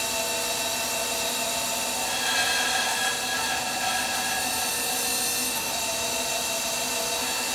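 Laguna 14|12 bandsaw running with its blade cutting through a wooden board, hogging out the waste between dovetail pins. It makes a steady machine whine whose tone changes about two seconds in.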